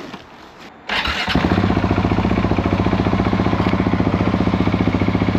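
Husqvarna 701's single-cylinder four-stroke engine starting about a second in and settling into a steady, evenly pulsing idle.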